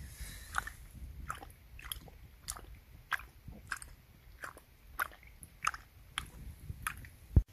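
A dog lapping liquid gruel from a metal bowl: short wet laps at a slow, even rhythm of a little under two a second. A single sharp thump near the end is the loudest sound.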